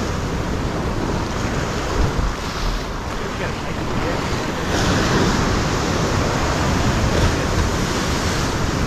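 Ocean waves surging and washing against a rock ledge in a continuous rush of whitewater. The wash grows louder about five seconds in as a bigger wave breaks over the rocks.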